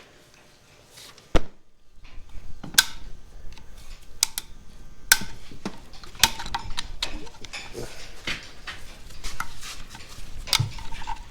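Metal parts and hand tools clinking, knocking and scraping as a tractor PTO assembly is taken apart by hand: one sharp click about a second and a half in, then a busy run of clinks and scrapes.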